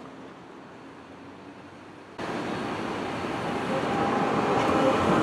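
Quiet city street background, then from about two seconds in, the running noise of a Munich Adtranz Class R2 low-floor tram passing close by, starting suddenly and growing louder.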